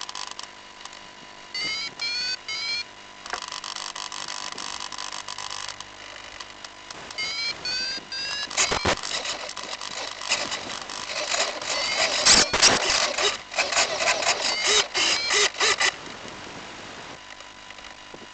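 Electronic beeper on a downed FPV aircraft chirping in short groups of three rising tones, repeating every few seconds. From about 8 to 16 seconds in, a loud crackling noise covers it.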